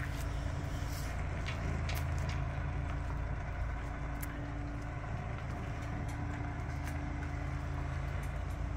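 Pickup truck engine running steadily at low revs: a low rumble with a steady hum over it.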